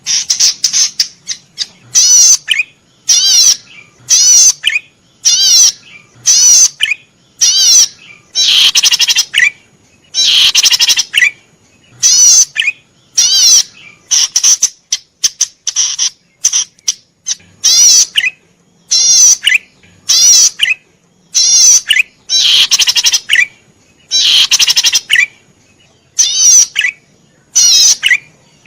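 Cici padi merah, a small cisticola, singing vigorously: short, loud bursts of rapid, high, wavering trilled notes, repeated about once a second with brief gaps between.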